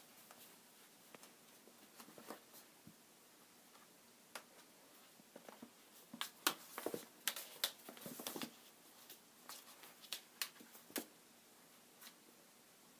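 A kitten's claws and paws scrabbling and tapping on a plastic laundry basket as it plays, with a small ball knocking about; irregular faint clicks and scrapes, with a busy flurry about halfway through.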